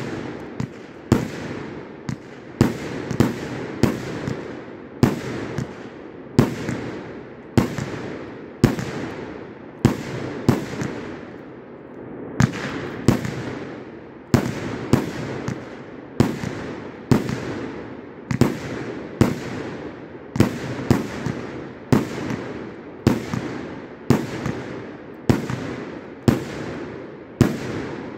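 Consumer firework cake firing shot after shot, a steady run of sharp bangs at about one or two a second, each trailing off briefly.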